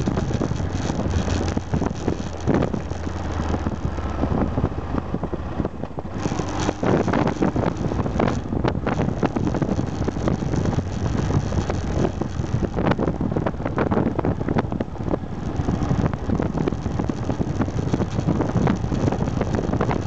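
Aprilia Pegaso 650 Strada's single-cylinder engine running while riding, with heavy wind buffeting on the microphone.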